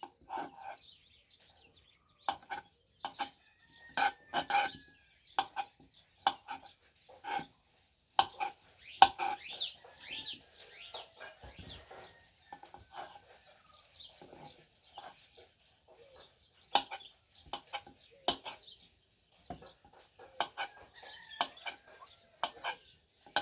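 Knife chopping arrowroot (nduma) into pieces on a board: irregular sharp knocks, a few a second in bursts. Chickens cluck and birds chirp in the background, most busily about nine to eleven seconds in.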